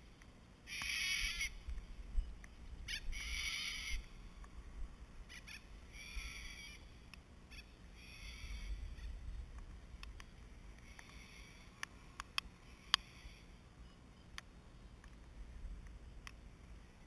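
Small quadcopter's electric motors and propellers buzzing in bursts as the throttle comes up and drops off, over a low rumble of wind on the microphone. A few sharp ticks about twelve to thirteen seconds in.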